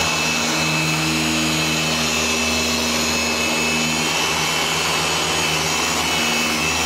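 Handheld corded electric polisher running steadily with a buffing pad pressed against a truck fender, a constant motor hum and whine, as it cuts heavily oxidised single-stage paint.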